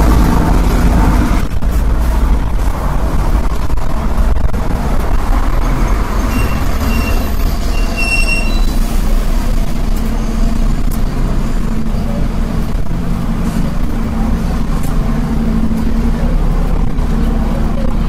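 City street traffic: vehicle engines running with a steady low rumble, and a few short high-pitched tones near the middle.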